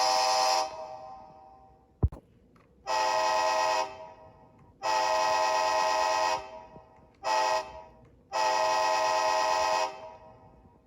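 Model locomotive air horn played by an ESU LokSound 5 sound decoder through the model's speaker, sounding the grade-crossing pattern of long, long, short, long blasts of a steady multi-chime chord. A blast ends just after the start, and a sharp click comes about two seconds in.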